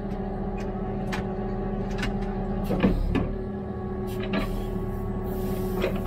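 Hidromek 102B backhoe loader's diesel engine running at a steady speed, with a scatter of short sharp clicks and knocks over it.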